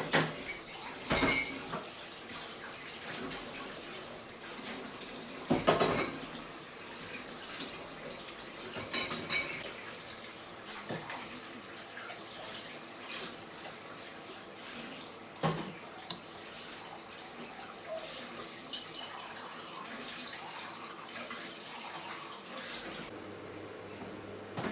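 Basmati rice being washed in a glass bowl: water sloshing as the rice is stirred with a metal fork, with a few sharp clinks of the fork against the glass.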